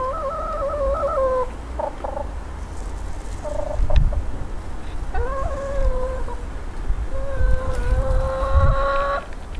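Chickens calling: a long drawn-out call at the start, a couple of short clucks, then two more long held calls in the second half.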